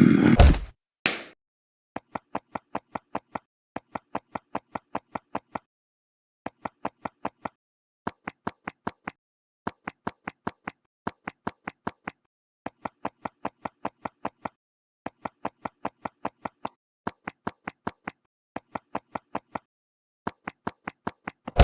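Cartoon-style eating sound effect: short bursts of quick chomping pops, about six a second, repeated about eleven times with silent gaps between them. A louder noisy sound dies away within the first second.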